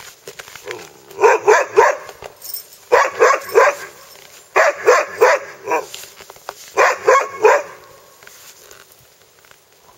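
Sled dogs barking in four quick runs of three to five barks each, the runs coming every second and a half or so, then falling quiet about eight seconds in.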